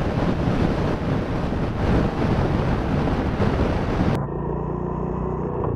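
Wind rushing over the microphone of a moving Royal Enfield Classic 350 motorcycle; about four seconds in the wind noise cuts off suddenly, leaving the steady running note of the bike's single-cylinder engine.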